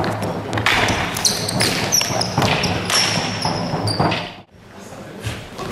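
Athletic shoes squeaking and thudding on a sports hall floor during footwork, with repeated sharp knocks. The sound cuts out briefly near the end and comes back quieter.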